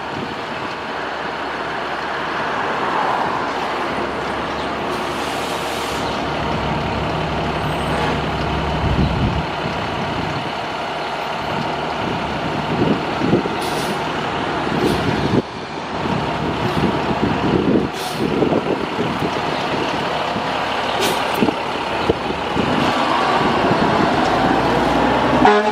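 2009 Seagrave Marauder II fire engine's diesel running steadily, building up as the rig rolls out of the firehouse bay. Several short, sharp air hisses come from its air brakes in the middle of the stretch.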